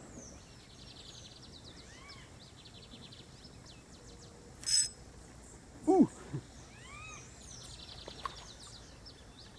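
Birds chirping and calling in many small, quick notes. A brief noisy burst comes a little before the middle, and a short, louder swooping sound comes about six seconds in.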